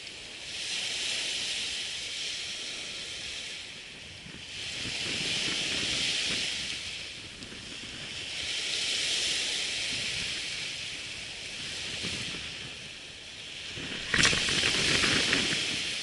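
Surf on a sandy beach: waves breaking and washing up the shore in hissing swells that come and go about every four seconds, with a sharper, louder wave crash near the end.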